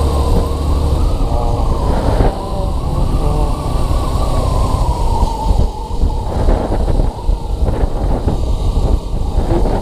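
Riding noise from a Yamaha FZS V3 motorcycle on the road: wind rushing and buffeting over the action camera's microphone, with the bike's 149 cc single-cylinder engine running underneath. The rush is steady and loud, dipping briefly twice near the middle.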